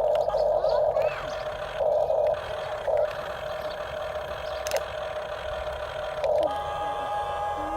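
Small electric motors of RC construction toys whining steadily, growing louder in short bursts as they work, with a steady higher tone joining in over the last second or so.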